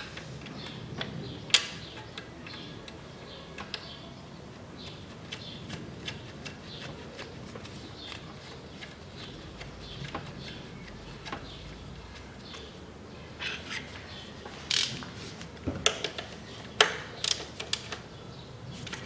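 Hand tools working on a car's alternator mounting bolt: wrench and ratchet clicking and clinking on metal as the alternator is pulled tight to tension the drive belt. Scattered single clicks, with a cluster of louder clicks near the end.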